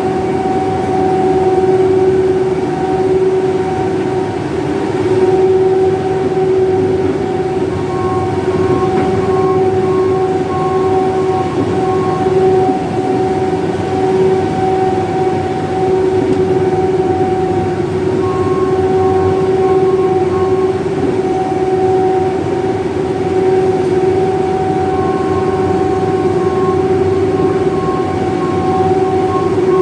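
Grain crimper running steadily, its rollers flattening grain, with a constant high whine over a mechanical rumble.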